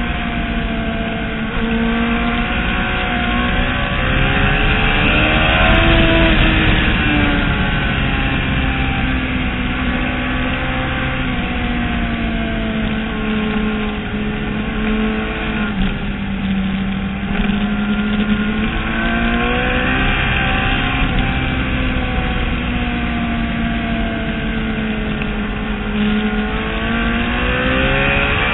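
Motorcycle engine heard from an onboard camera at speed on a racetrack, its pitch rising and falling as the bike accelerates and slows, over a steady rush of wind noise.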